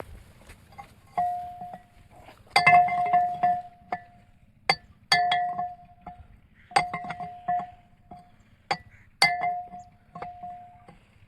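Metal struck repeatedly with a metal tool, a dozen or so irregular clinks, each ringing on with the same clear tone, with a quick flurry of strikes about two and a half seconds in.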